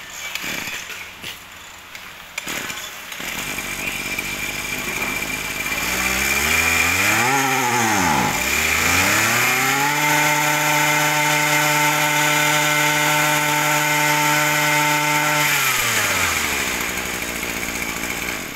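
Tanaka TCG24 24cc two-stroke brush-cutter engine being pull-started. A few pulls are followed by the engine catching about three seconds in. It revs up, drops back low, revs again and is held at high speed for about five seconds, then falls back as the throttle is let go.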